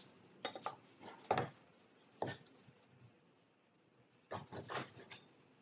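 Knife slicing vegan char siu on a bamboo cutting board: sharp knocks of the blade reaching the board, a few in the first second and a half, one more a second later, then a quick run of several near the end.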